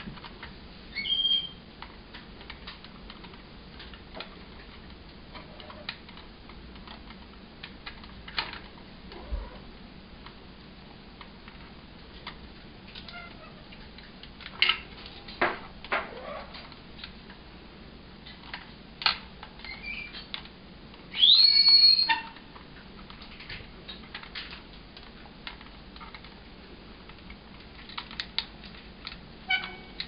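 Hawk-headed parrot working a clear plastic foraging carousel: scattered clicks and taps of beak on plastic. About two-thirds of the way through comes a loud, arching whistled call lasting about a second, with a shorter chirp near the start.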